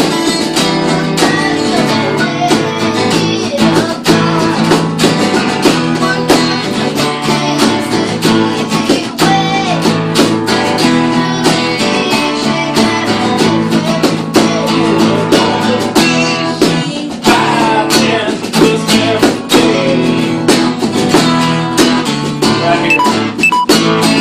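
Acoustic guitar strummed steadily, playing an instrumental passage of a song with no singing.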